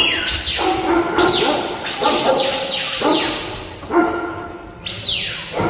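New Zealand Huntaway sheepdog barking loudly and repeatedly, about once a second, the deep driving bark this breed uses to move sheep.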